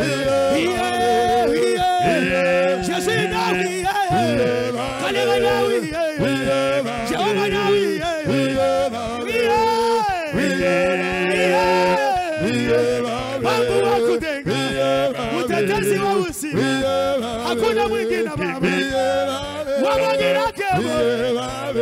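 A group of men singing a worship song live into microphones, over sustained instrumental backing.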